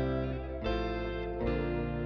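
Background guitar music, with a new chord struck about every three-quarters of a second.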